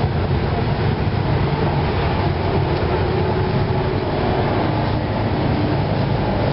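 Steady low rumble of a portable gas stove burner running under a saucepan of water that is heating but not yet boiling.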